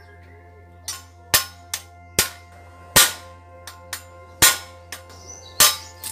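A metal tool knocking hard on the steel bottom bracket of a GT Avalanche bicycle frame: about seven sharp metallic blows at uneven intervals, each ringing briefly. Background music plays steadily underneath.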